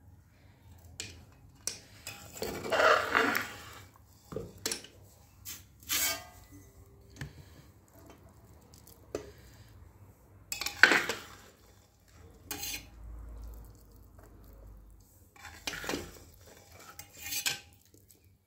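Metal spatula scraping and clinking against an aluminium pressure cooker and a steel dish as cooked rice is scooped out and tipped across, in irregular bursts with short pauses between.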